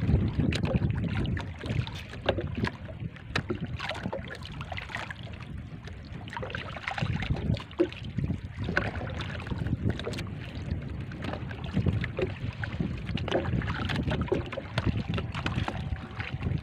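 Wind buffeting the microphone over water lapping and splashing against a small boat's hull, with scattered small knocks and splashes throughout.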